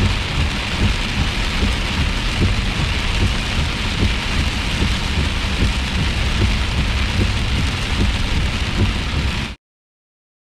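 Torrential rain pouring down in a steady, dense rush, cutting off abruptly about nine and a half seconds in.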